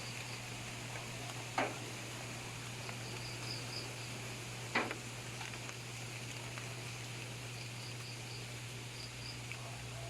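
Quiet outdoor ambience: faint high chirps come in short runs of three or four over a steady low hum. Two sharp clicks sound, one about a second and a half in and one near five seconds in.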